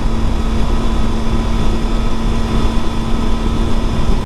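Triumph Tiger 800 three-cylinder motorcycle engine running at a steady low speed, a steady drone under wind and road noise on the bike-mounted camera.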